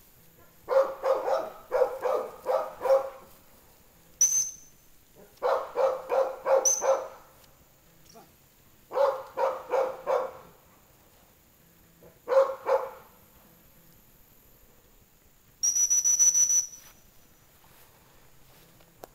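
A dog barking in four runs of rapid barks, the loudest sound. Between them a dog-training whistle gives two short high blasts and, near the end, one longer fluttering blast.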